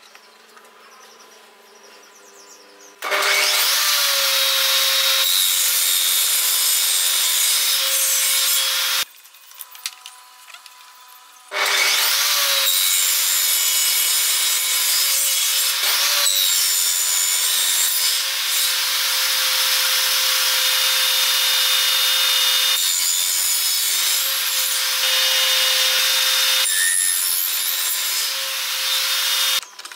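Table saw running and cutting into a wooden workpiece clamped upright in a tenoning jig, cutting a tenon cheek. It comes in twice, about three seconds in and again after a short gap, with a steady motor hum under the cutting noise, and each run stops abruptly.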